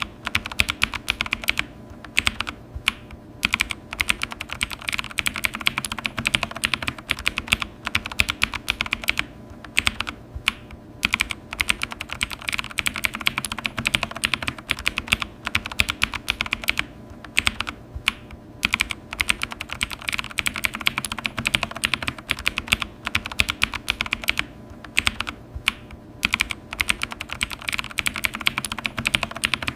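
Computer keyboard being typed on quickly: dense runs of key clicks, broken every several seconds by brief pauses.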